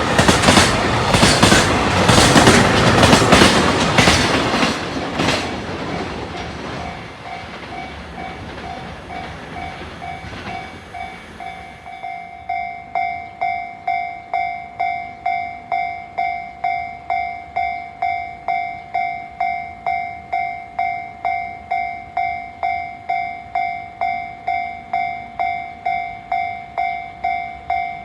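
A freight train's wagons clatter over the rail joints as they pass, then fade away over the next several seconds. From about twelve seconds in, a level-crossing warning bell rings steadily, about two strikes a second.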